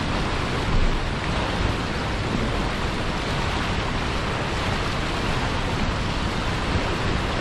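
Turbulent white water churning and rushing below a weir, a steady, even rush of water.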